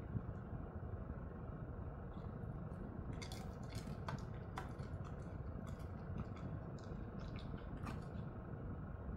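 Low steady room hum with scattered light clicks and ticks.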